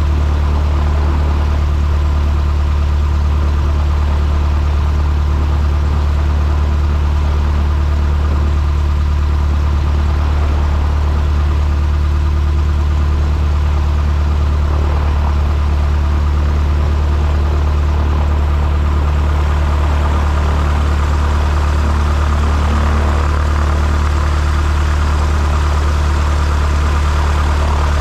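A machine running steadily with a deep, even hum that stays the same throughout.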